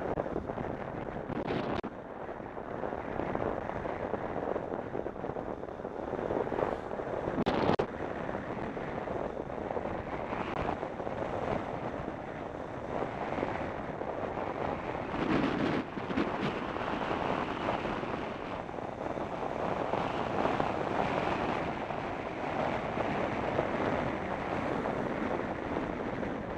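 Wind rushing and buffeting over the microphone of a camera on a moving bicycle, a steady rush with uneven gusts that swell louder now and then.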